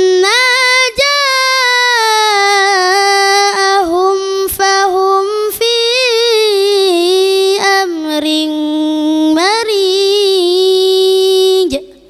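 A boy reciting the Quran in melodic tilawah style into a handheld microphone, drawing out one long ornamented phrase whose pitch bends and wavers with only brief catches. It stops suddenly near the end.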